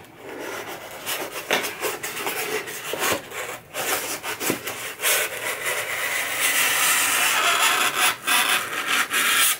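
Styrofoam packing and cardboard box rubbing and scraping against each other as a planter's foam insert is worked out of its box. The scraping grows louder and steadier over the last few seconds.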